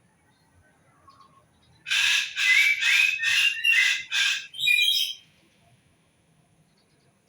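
A bird giving a quick run of about six loud, harsh calls, roughly half a second apart, lasting about three seconds.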